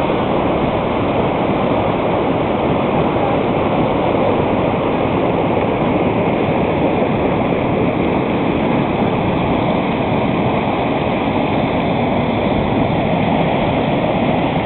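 Whitewater river rapids rushing loudly and steadily, a continuous wash of churning water with no let-up.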